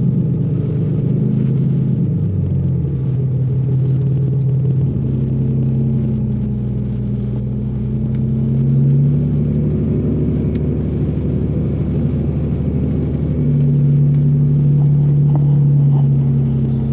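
A vehicle engine running steadily with a low drone, its pitch stepping up or down a few times as the speed or gear changes.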